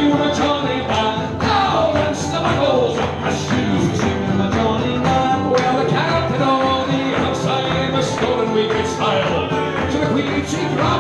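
Live Scottish folk band playing: acoustic string instruments strummed in a brisk, steady rhythm under a melody line.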